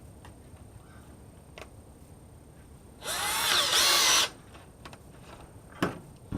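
Power drill run in one short burst of about a second, its motor whine rising in pitch as it spins up, driving at a screw in a kitchen faucet. A couple of short knocks follow near the end.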